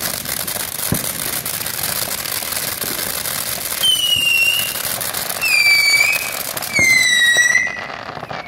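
Ground fountain firework spraying sparks with a steady crackling hiss. About four seconds in it gives three shrill whistles, each dipping slightly in pitch, the third the loudest. Near the end the hiss falls away as the fountain dies down.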